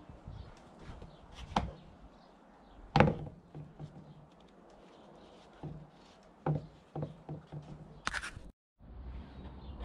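Handling of the Mercedes Sprinter's plastic airbox and air filter element during a filter change: scattered knocks and taps, the loudest about three seconds in, and a short rustle near the end.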